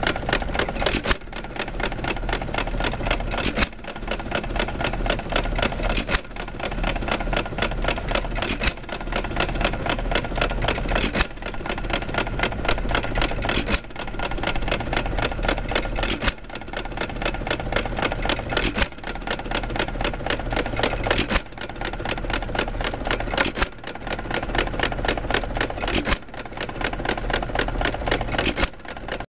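Lauson L hit-and-miss gas engine running, firing with a sharp bang about every two and a half seconds and coasting between firings with a steady mechanical clatter.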